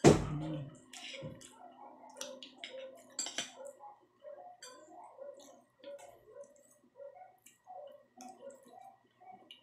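Eating with a spoon and fork from a ceramic plate: a loud knock right at the start, then light clinks and scrapes of the cutlery on the plate, then close-up chewing at about two chews a second.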